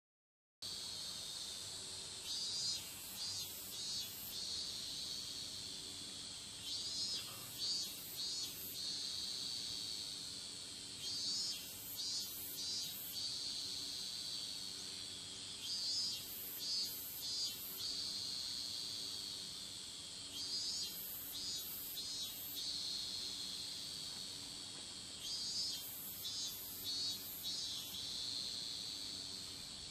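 Insects such as crickets singing: a steady high shrill, with a group of three short chirps repeating about every four and a half seconds.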